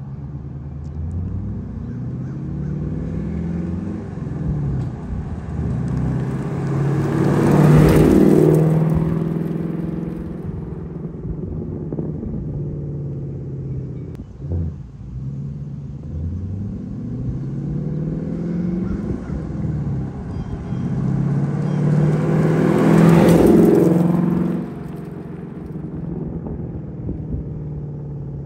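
2022 Ford Mustang Mach 1's 5.0-litre V8 through a Steeda X-pipe and the factory active exhaust in normal mode, cruising past twice. Each pass swells to a peak as the car goes by, about eight seconds in and again about twenty-three seconds in, then fades away.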